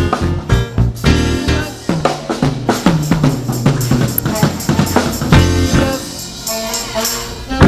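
Live worship band music without singing: a drum kit playing busy hits and fills over bass and other instruments.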